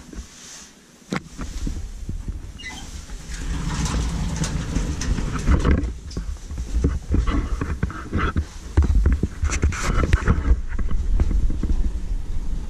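Footsteps with irregular knocks and clatter over a low rumble, with one sharp click about a second in.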